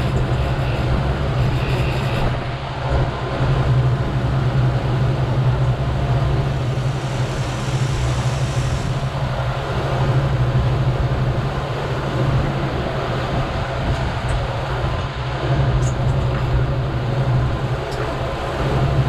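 Twin outboard motors running steadily as the boat moves along, a constant low drone mixed with the rush of the wake water.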